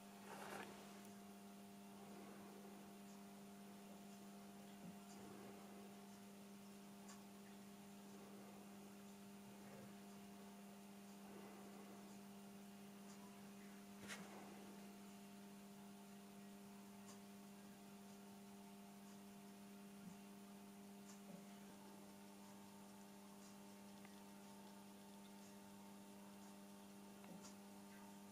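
Near silence: a steady low electrical hum, with a few faint clicks.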